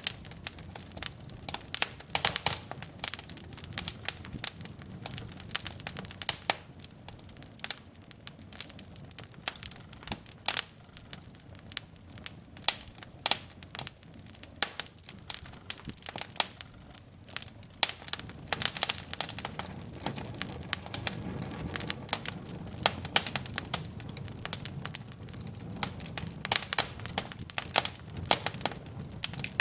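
Wood fire burning in a fireplace: irregular sharp crackles and pops from the burning logs over a low steady rumble of flame.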